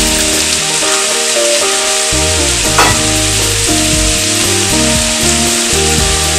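Salt cod, potatoes and carrots frying in oil in a pan, a steady sizzle with one sharp tick about three seconds in. Under the sizzle runs a series of low sustained notes.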